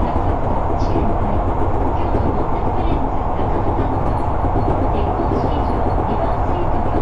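Kyoto subway train running between stations, heard from inside the carriage: a loud, steady rumble of wheels and running gear on the track.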